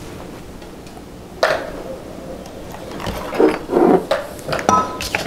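Kitchen utensils and measuring cups being handled on a counter: a sharp knock about a second and a half in, then a run of knocks and clatter near the end with a brief ringing clink.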